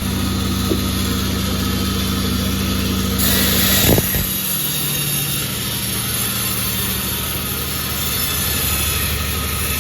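A sawmill's engine running steadily. About three seconds in there is a brief louder rasping hiss, which ends in a sharp knock near four seconds.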